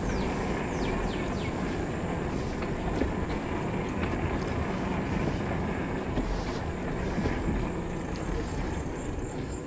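Steady wind noise on the microphone mixed with an e-bike's tyres rolling over wooden boardwalk planks while riding along.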